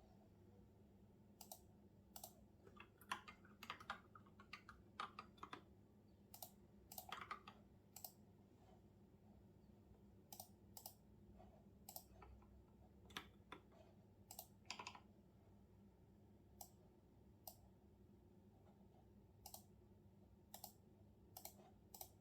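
Faint, intermittent keystrokes on a computer keyboard. Short clusters of keys come in the first several seconds, then single keys about once a second or less, over a low steady room hum.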